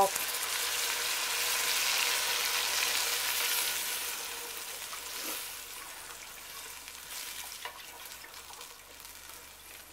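Chicken broth poured from a carton into a hot stock pot of browned sausage, onions and bacon drippings, hissing and sizzling as it hits the pan. The sizzle is strongest for the first few seconds, then dies down.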